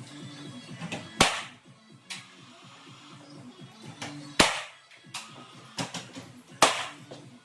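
Gas-powered cordless nail gun firing three times, a few seconds apart, each a sharp crack, over background music.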